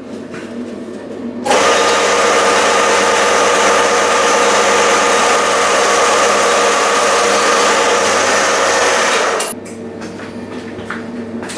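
A CNC machine runs steadily for about eight seconds with a steady hum over a wide hiss. It starts suddenly about a second and a half in and cuts off near the end, leaving only light clicks and knocks.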